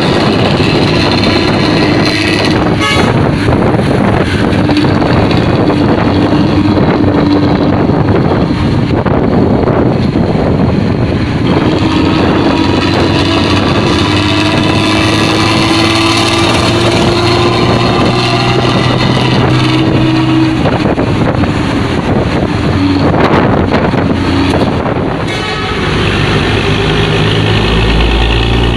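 Bus diesel engine running loud through a 'ngorok' (snoring) exhaust, a deep rattling growl; its note climbs slowly for several seconds in the middle as the engine pulls, then drops back.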